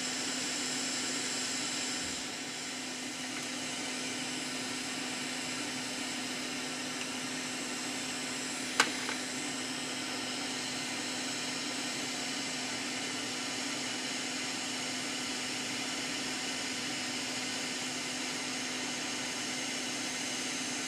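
Handheld hot-air rework gun blowing steadily: a constant hiss of air with a steady low fan hum, heating surface-mount MOSFETs on an engine control unit's circuit board to melt their solder for removal. A single sharp click sounds about nine seconds in.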